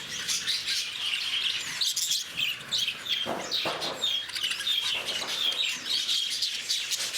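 A flock of lovebirds chattering: many rapid, overlapping high chirps and squeaks, without a break.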